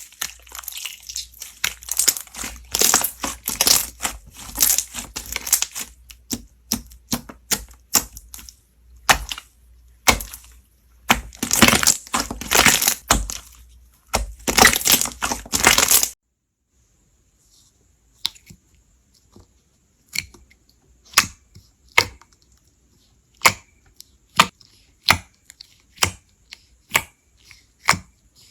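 Slime being squeezed and pressed by hand, making dense crackling, crunching sounds in bursts. About halfway through the crackling cuts off suddenly and gives way to a run of sharp single pops, about one a second.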